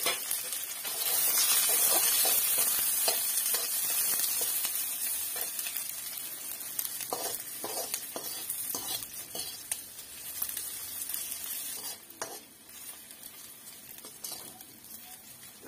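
Sliced onions sizzling in hot oil in a steel kadai while a metal spatula stirs and scrapes them, with scattered clinks of metal on the pan. The sizzle is loudest in the first few seconds and dies down after.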